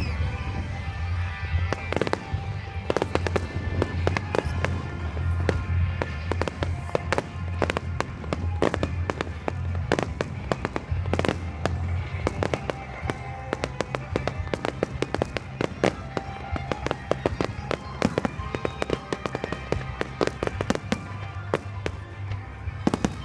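Fireworks display: a dense, continuous run of sharp bangs and crackles, several a second, with music playing alongside.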